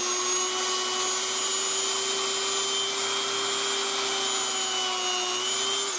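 Dremel rotary tool running steadily at high speed with a small polishing bit pressed against a stainless-steel Ruger GP100 revolver part: an even, high whine with a hiss of the bit on the metal. It begins to wind down right at the end.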